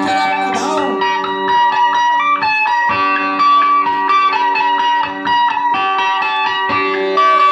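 Plucked-lute music: a quick melody of short repeated notes over a steady low drone.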